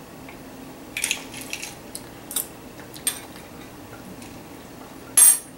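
Scattered clinks of a metal spoon, ice and a glass mug of lemonade: a quick cluster about a second in, single clinks a little later, and a louder clink near the end.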